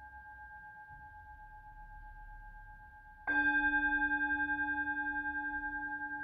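Tibetan singing bowl ringing: an earlier strike fades out, then the bowl is struck again about three seconds in. Its low hum and higher overtones ring out with a slow pulsing wobble as they slowly die away.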